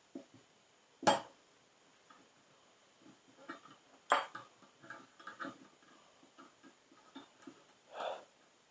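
Light metallic clicks and clinks of yard-hydrant parts being handled as the handle is fitted, with two sharp clicks about a second and four seconds in and a run of lighter taps between them, then a softer knock near the end.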